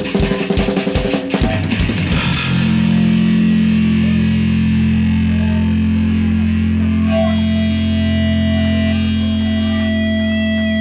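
Live punk rock band with distorted electric guitars and drum kit hitting the last accents of a song. About two seconds in the drums stop, and the guitars and bass are left ringing on a held chord. A steady high feedback tone comes in over it about seven seconds in.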